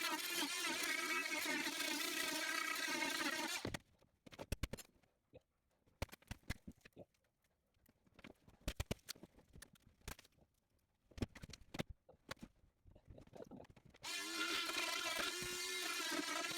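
Oscillating multitool buzzing steadily as it cuts, stopping just under four seconds in. A scatter of knocks and clicks follows, then the multitool starts cutting again a couple of seconds before the end.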